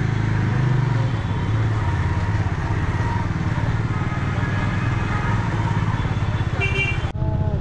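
Motor vehicle engine running steadily with a fast pulsing low note, with a brief high beep near the end.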